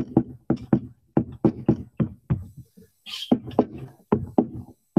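Pen tapping and scraping on a writing surface as numbers are handwritten: a quick, irregular run of knocks, about four a second.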